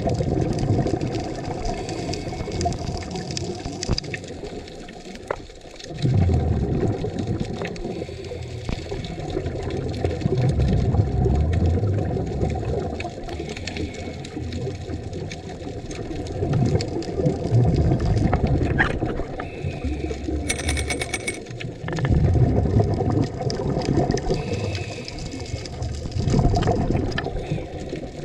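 Scuba divers' breathing through their regulators heard underwater: a low bubbling rumble of exhaled air swells and fades about every five seconds, over a steady watery hiss.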